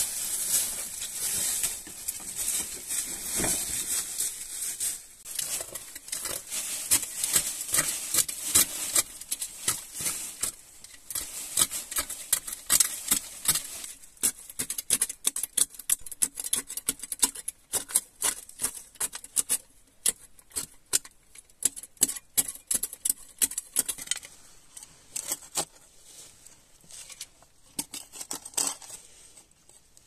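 A small hand shovel digging and scraping into dry, gritty soil and stones, making many quick crunching strokes that thin out over the last few seconds. Dry leaves rustle for the first few seconds.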